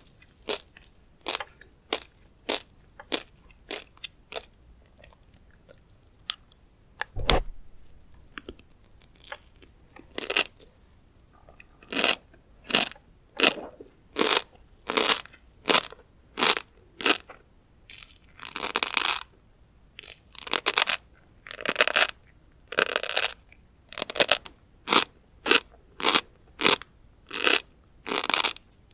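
Close-miked chewing of tobiko (flying fish roe): crunchy popping in a steady rhythm of short pulses, about two a second at first and a little slower later on. A single sharp click with a low thump about seven seconds in.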